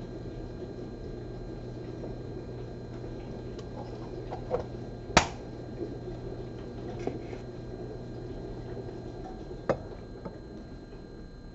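Room tone with a steady low hum, broken by a few sharp clicks: a small pair about four and a half seconds in, the loudest just after five seconds, and another near ten seconds.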